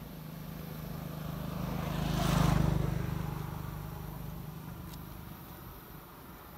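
A motor vehicle driving past, its engine hum growing louder to a peak about two and a half seconds in, then fading away.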